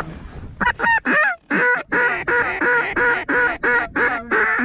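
Duck call blown by a hunter in a fast, even run of loud quacks, about three or four a second, growing denser in the second half as it keeps on to lure circling ducks back to the decoys.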